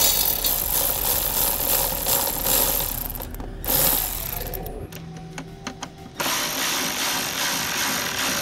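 Cordless electric ratchet with a deep 10 mm socket tightening the battery hold-down nuts. It runs in spells: a long whirring run with the ratchet rattling, a short burst about four seconds in, a pause with a few clicks, and another steady run from about six seconds on.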